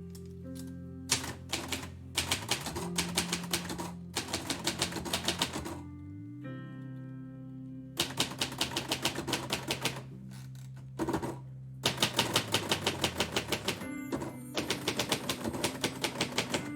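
Typewriter being typed in bursts of rapid keystrokes a second or two long, with short pauses between them. Instrumental music plays underneath.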